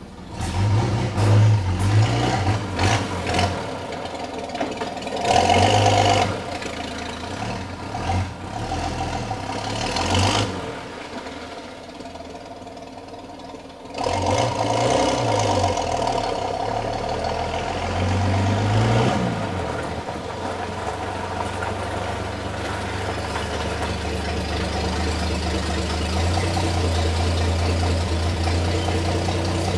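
Old 1932 Chevrolet truck engine running under way, its note rising and falling in repeated surges as it is driven to try out the freshly repaired and adjusted clutch. About halfway through it drops back for a few seconds, then picks up again and holds a steadier, stronger note near the end.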